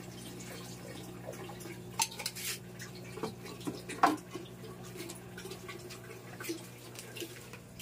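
Water bubbling and trickling from a submersible aquarium pump running in a tank, over a steady electric hum, with scattered light clicks and knocks of glass panels being handled; the sharpest knock comes about four seconds in.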